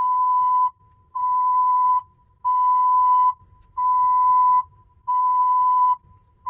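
A test record's balance-test band playing through loudspeakers: a 1,000 Hz test tone sounding as five repeated notes just under a second long, with a faint steady tone between them. The tone's pitch reads pretty close to 1,000 Hz, a sign that the turntable is running near its correct speed.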